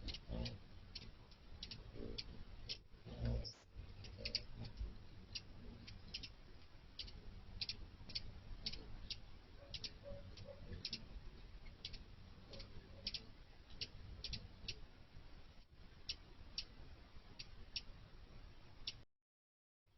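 A run of short, sharp, high chip notes at the feeder, about two a second and slightly uneven, typical of hummingbird chip calls. Under them is a faint low hum. The sound cuts out abruptly near the end.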